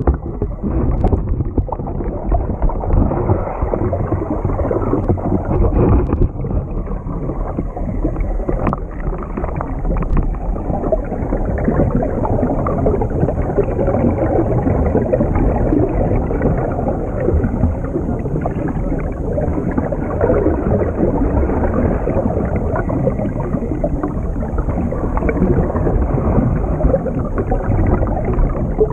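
Muffled underwater rumbling and bubbling during a scuba dive, heard through a waterproof camera housing.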